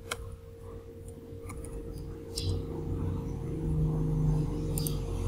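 A few isolated computer keyboard keystrokes, sharp single clicks about a second apart, over a steady low hum.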